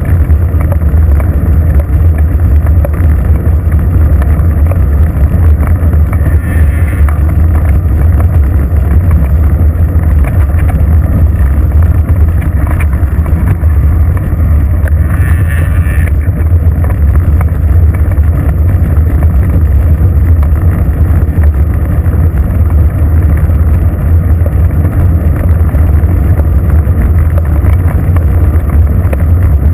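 Wind buffeting the microphone of a bicycle-mounted GoPro camera while riding, a loud steady low rumble mixed with tyre noise on asphalt. A brief higher-pitched noise comes twice, about seven and fifteen seconds in.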